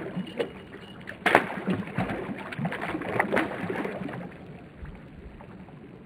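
Hooked shad splashing and thrashing at the water's surface as it is reeled in: a run of irregular splashes over the first four seconds, the two loudest about a second in and about three seconds in, then it settles.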